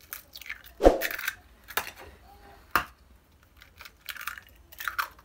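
Eggs being cracked into a mixing bowl: a sharp crack about a second in, then several smaller cracks and knocks as more shells are broken open.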